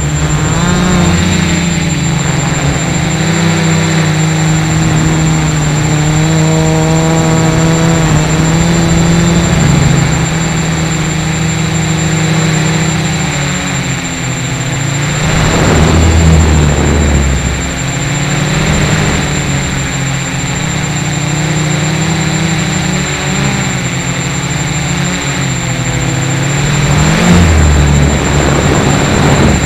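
A DIY 330-size quadcopter's brushless motors and propellers whining, heard from the camera on board. The pitch rises and falls as the throttle changes, with louder rushing surges about halfway through and again near the end.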